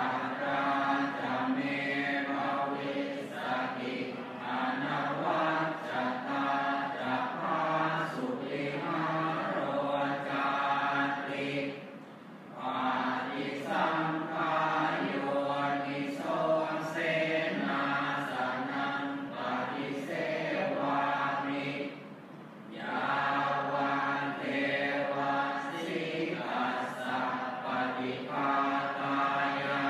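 Thai Buddhist morning chanting: a congregation of low voices recites in unison on a steady, level pitch. The chant breaks off briefly twice, about twelve and twenty-two seconds in, between phrases.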